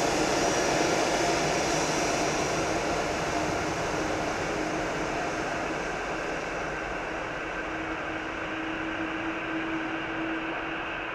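Airbus A320 jet engines running as a steady rushing noise with a faint hum, slowly fading as the airliner moves away.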